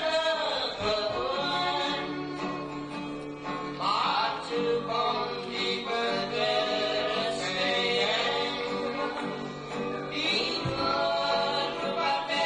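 A song playing: singing over instrumental accompaniment.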